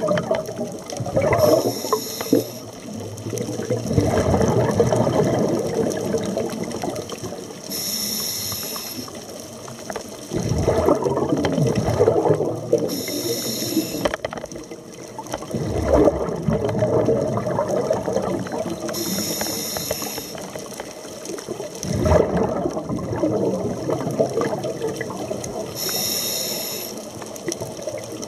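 Scuba diver breathing through a regulator: a short hiss from the demand valve on each inhale, then a longer rush of bubbling exhaust on each exhale, repeating about every six seconds, five breaths in all.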